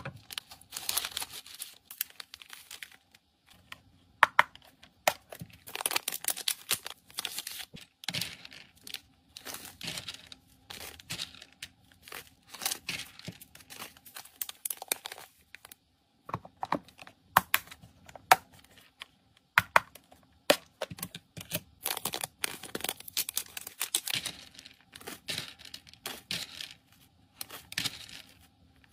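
Thin plastic zip-lock bags crinkling in the hands, with small hard tablets clicking against a plastic scoop and box as they are scooped up and dropped into the bags. The crinkles and sharp clicks come in irregular clusters.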